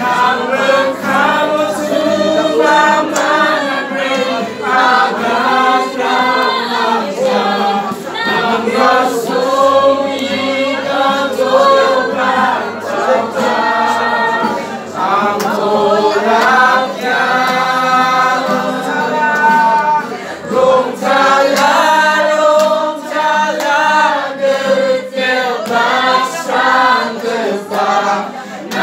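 A group of people singing a worship song together without instruments, in long held phrases, with hand claps.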